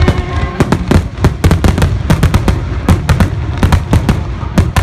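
Fireworks going off in rapid, uneven succession, many sharp bangs and cracks a second, with music underneath.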